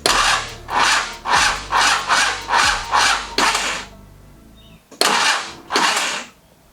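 Nissan GQ Patrol's TD42 straight-six diesel being cranked by its starter motor, turning over slowly in labouring pulses about two a second without firing. After a pause it is cranked again for two more slow turns. The slow, unfired cranking is the sign of a flat battery.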